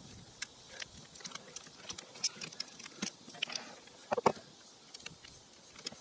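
Scattered light metallic clicks and scrapes of a screwdriver and pliers working solid wires onto the terminal screws of a Square D Pumptrol pressure switch, with a louder pair of clicks about four seconds in.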